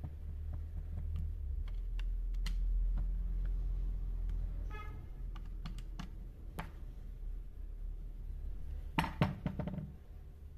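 Screwdriver clicking and scraping on the screws of an angle grinder's gear-head housing as it is taken apart, over a low steady hum. A brief squeak comes about halfway, and a quick run of louder clicks near the end.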